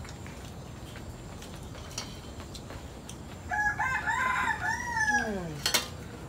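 A rooster crowing once, starting about three and a half seconds in: a long call that falls away in pitch at the end. A sharp click follows just after it.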